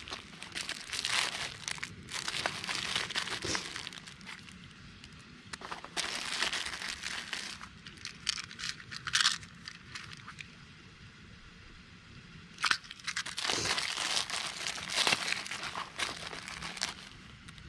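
Crinkling and rustling of plastic-wrapped first-aid supplies and a canvas pouch being handled, in several bursts with quiet gaps between, and a couple of sharp taps.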